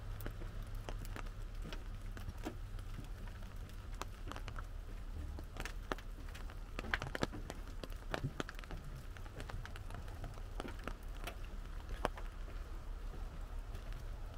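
Raindrops tapping on an umbrella: scattered, irregular ticks of single drops, a few louder ones about seven and twelve seconds in, over a low steady rumble.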